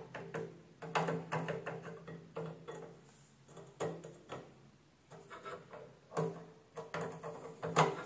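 Irregular light knocks and clicks, each with a brief low ring, from test probes and leads being handled against the microwave oven's metal cabinet and terminals.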